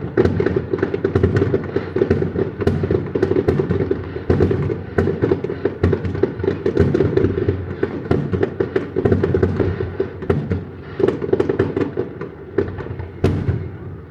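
Aerial fireworks going off in a dense barrage: many overlapping booms and crackles a second, with a constant low rumble beneath them.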